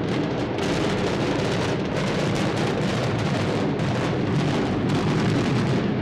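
Explosive demolition of a long concrete apartment block: a dense, continuous crackle of charges firing in quick succession over a deep rumble as the building collapses.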